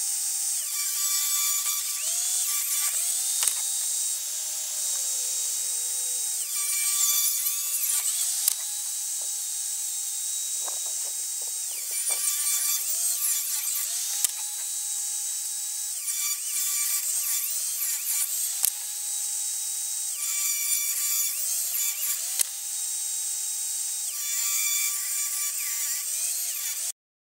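Portable jobsite table saw ripping rough chainsaw-milled boards into narrow strips. The motor's whine sags under load as each board is fed through the blade and climbs back once the cut ends, several cuts in a row.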